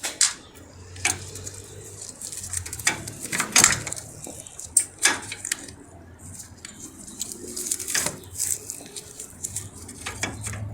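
Scattered metallic clinks and knocks as the battery hold-down bracket and its 10 mm bolt are fitted by hand, at irregular intervals of a second or two.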